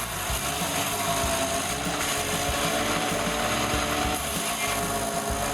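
Wood chipper running and chewing through wood: a steady, dense mechanical grinding over an engine tone, with irregular low knocks as pieces are fed in.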